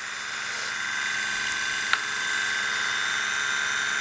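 DeJur 750 film projector's electric motor and gear-and-chain drive running at speed, a steady mechanical whine, with one short click about halfway through.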